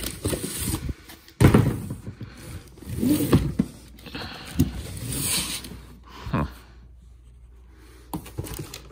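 Cardboard boxes and packaging being handled and shifted inside a larger shipping box: scraping and rustling of cardboard, with a sharp thump about a second and a half in and a few lighter knocks after it, then a lull before more rustling near the end.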